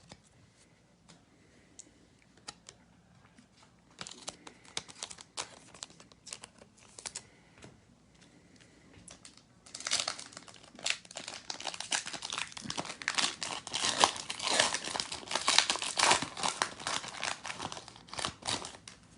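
Plastic trading card pack wrapper being handled, crinkled and torn open: a few scattered crackles, then about ten seconds in a dense, louder run of crinkling and tearing.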